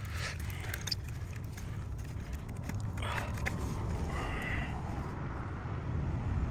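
Light clicks and scrapes of hands and tools working on the ignition coils of a V8 with its engine off, over a steady low background rumble.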